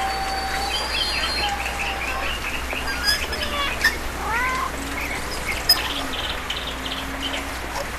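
Animal calls: rapid, high chirping notes in runs, with a couple of rising, meow-like calls in the middle and a few sharp clicks, over a steady background hiss.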